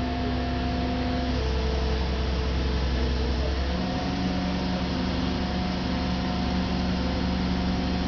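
Heavy engine running steadily, with a low hum and a few steady tones that change pitch about four seconds in, as the engine speed shifts.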